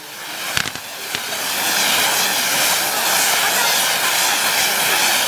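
Firework fountain (gerb) in a lancework set piece, hissing as it sprays sparks out of the champagne bottle's neck. There are two sharp pops in the first second or so. The hiss swells over about two seconds, then holds steady and loud.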